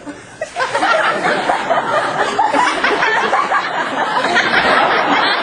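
Audience laughing, many voices at once, breaking out about half a second in and staying loud.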